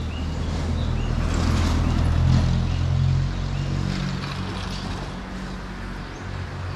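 An engine running steadily, growing louder to a peak about two seconds in and then easing back.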